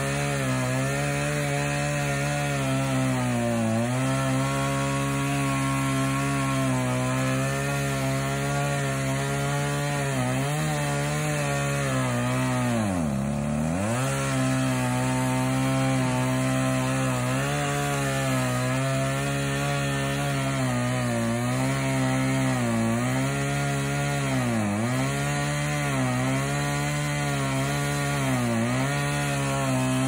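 Chainsaw running hard while cutting into a tree trunk, its pitch sagging each time the chain bites into the wood under load. The deepest drop comes about halfway through, and a run of quick dips follows near the end.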